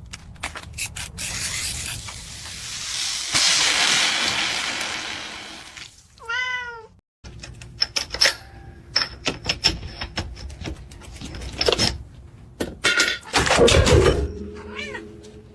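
A cat meows once, a falling call about six and a half seconds in, with another short meow near the end. Around the calls are a long hiss that swells and fades, and scattered clicks and knocks.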